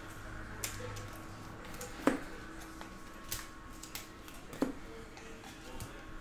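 2022-23 Panini Prizm basketball cards being flipped through by hand one at a time: a light card snap or tap about every second and a quarter, over a faint steady hum.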